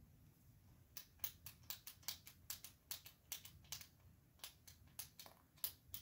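Rapid run of small plastic clicks, about three or four a second, starting about a second in, from the ratcheting click or twist end of a pen-style lip product being worked to push the product up; it is slow to come out.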